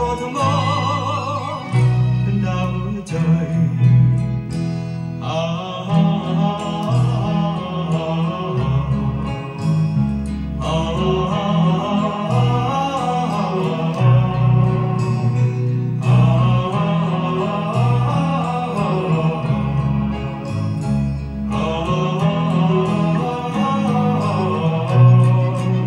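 Thai vocal song played from a vinyl record on a turntable with a Denon DL-103R moving-coil cartridge, at an instrumental break between verses: full band accompaniment at a steady level.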